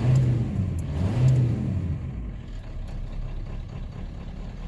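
7.3-litre V8 diesel engine revving up twice under light throttle, then settling back to a steadier idle about two seconds in. The throttle is being used to clear a rough idle on startup.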